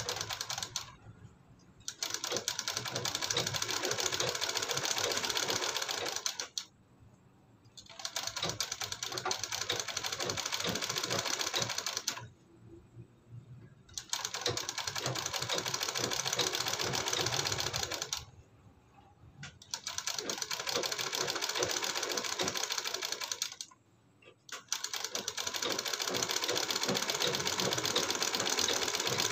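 Industrial lockstitch sewing machine stitching fabric. It runs in stretches of about four seconds and stops briefly five times, as a second row of stitching is run alongside the first.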